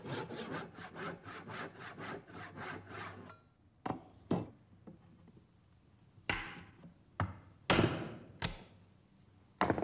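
Hand saw cutting a tenon in timber: quick, even back-and-forth strokes, about four or five a second, for about three seconds, then several separate, slower strokes with pauses between them.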